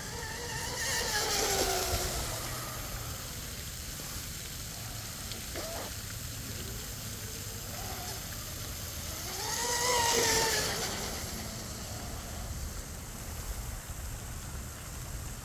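Electric RC catamaran boat with a 2948 3450 kV brushless motor running at speed across a pond. It makes two passes, each a high whine with a hiss of water that rises and then falls in pitch. The passes are loudest about a second and a half in and again about ten seconds in.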